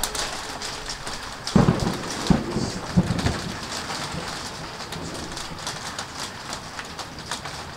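Steady rain, with drops ticking close by. About a second and a half in, thunder rumbles with three loud low jolts over the next second and a half.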